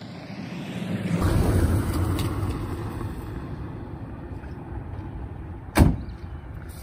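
A road vehicle passing by: its noise swells to a peak about a second and a half in with a falling sweep in pitch, then fades slowly. A single sharp thump comes near the end.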